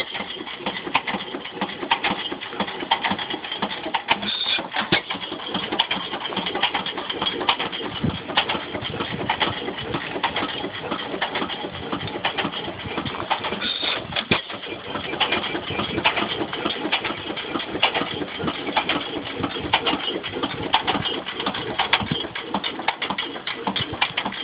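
8 hp Waterloo Boy single-cylinder hit-and-miss stationary gas engine running with its flywheels spinning, making a steady run of rapid beats.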